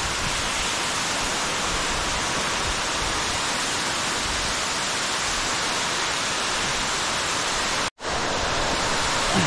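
Underground waterfall falling down a deep cave shaft: a steady rushing hiss of falling water and spray, with a split-second gap about eight seconds in.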